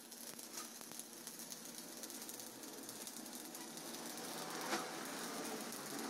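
Stick (shielded metal arc) welding arc crackling steadily as a bead is run along a seam in steel sheet, with one sharper pop about three-quarters of the way through.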